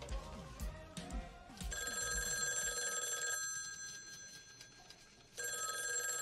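Desk telephone ringing twice, each ring a bright bell-like trill lasting about a second and a half, the first starting about two seconds in and the second near the end. Background music with a bass beat plays before the first ring.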